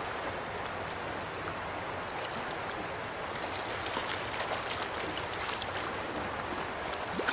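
Shallow stream water running steadily over rocks in a riffle, an even rushing wash. Faint scattered clicks come in over the second half.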